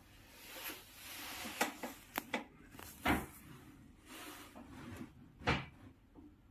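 A handful of short, sharp light knocks and clicks among soft rustling, the loudest a little after three seconds in and again near the end.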